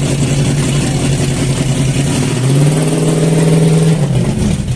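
Drift car's engine running at a fast idle, then revved up a little about two and a half seconds in, held for over a second, and dropping back near the end.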